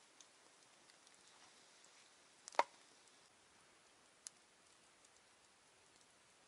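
Wood campfire crackling, with a few sharp pops over a faint hiss; the loudest pop comes about two and a half seconds in.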